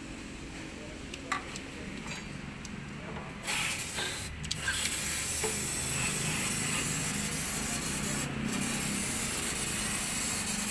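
Aerosol carburettor cleaner spraying in long hissing blasts from about three and a half seconds in, with two brief breaks, as it cleans oil from around the engine's VTEC solenoid seat before the solenoid is refitted.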